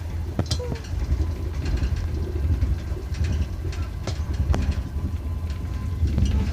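A moving train heard from inside the carriage: a steady low rumble with scattered clicks and knocks.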